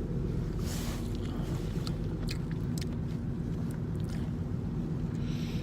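A person biting and chewing a sandwich close to the microphone, with a few short crisp crunches and wet smacks scattered through, over a steady low hum inside a car.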